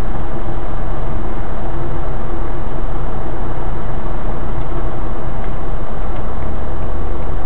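Car driving, heard from inside the cabin through a cheap dashcam's built-in microphone: a loud, steady rumble of engine and tyre noise, with a low hum that grows stronger near the end.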